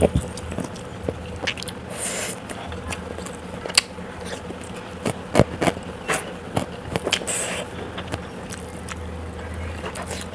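Close-up mukbang eating sounds: irregular bites, chewing, and sharp wet clicks and crunches from eating grilled chicken with rice and raw vegetables by mouth, over a low steady hum.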